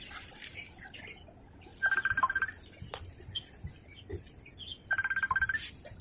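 A bird calling: a short, rapid trill of evenly spaced notes at one pitch, heard twice about three seconds apart.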